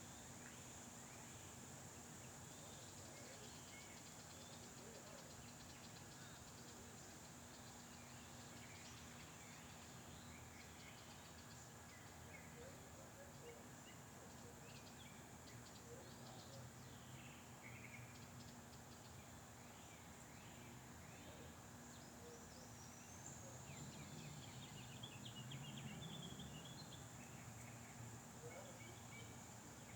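Near silence: faint outdoor ambience with scattered short bird chirps over a steady high hiss, a little louder for a few seconds near the end.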